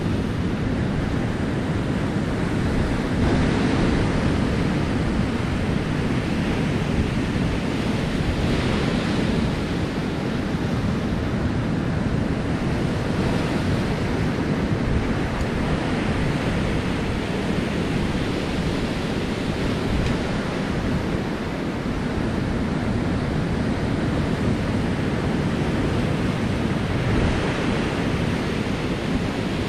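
Ocean surf breaking and washing over a rocky shore, swelling every few seconds, with wind buffeting the microphone.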